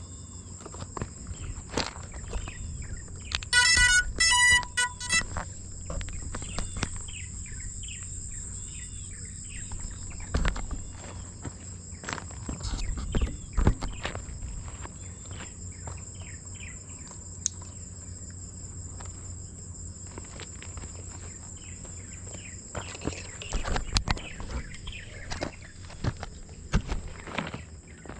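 Insects buzzing steadily at a high pitch, with scattered bird chirps, a low wind rumble and a few rustles and clicks. A brief, loud run of rapid chirps comes about four seconds in.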